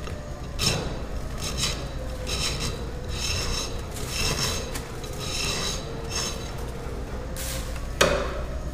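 Draw knife shaving a plaster cast, with repeated scraping strokes about once a second. A sharper, louder stroke comes near the end.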